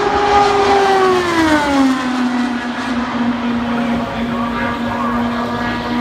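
IndyCar's twin-turbocharged V6 at full speed on a qualifying run: its engine note drops in pitch as the car passes, over about a second, then holds a steady drone as it runs away down the track.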